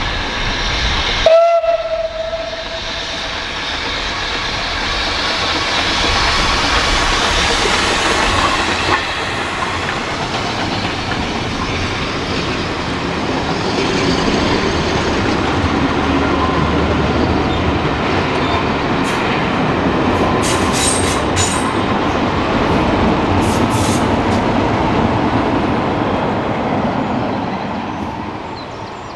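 A heritage train with Class 33 diesel 33063 passing close by. A short horn note sounds about a second in, then comes the long steady rumble and rattle of the train going past, with sharp wheel clicks over the rails, fading away near the end.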